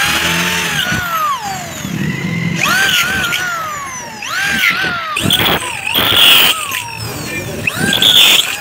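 Handheld electric drill boring holes in aluminium door-frame profile: the motor whine rises and falls several times as the trigger is squeezed and eased, with short harsh grinding bursts as the twist bit cuts through the thin aluminium wall.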